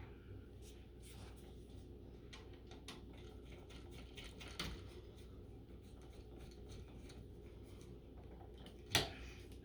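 Faint clicks and light scraping of electrical wires and connectors being pushed into a metal switch box by hand, with a sharper click about nine seconds in.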